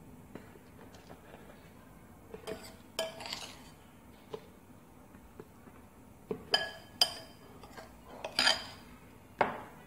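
Metal spoon clinking and scraping against a glass mixing bowl while wet, spiced pickle vegetables are stirred and scooped, in scattered clusters of sharp, briefly ringing clinks with quiet gaps between.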